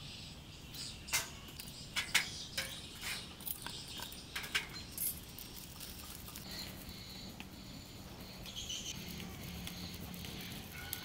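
Lumps of charcoal knocking and clinking against each other and the metal as they are set into a stainless steel charcoal box, about a dozen sharp knocks over the first five seconds. After that, only a faint steady background.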